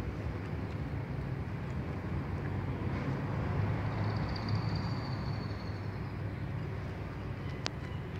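Street ambience: a steady low rumble of traffic, with a faint high whine in the middle and a single sharp tick near the end.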